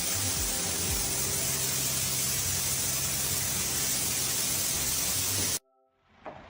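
Loud steady rushing hiss with a low steady hum underneath and a few dull low thumps, cutting off abruptly about five and a half seconds in.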